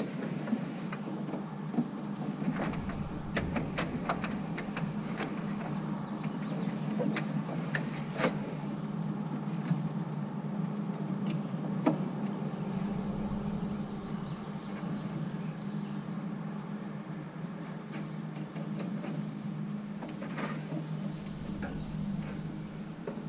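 Scattered light clicks and taps of hands handling and routing spark plug leads on a VW air-cooled engine, over a steady low hum.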